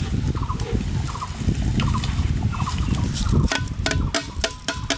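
Rice poured from a metal tray into a large pot of boiling water, a rushing, gurgling splash; in the last second or so it gives way to sharp clicks and knocks of the tray against the pot rim.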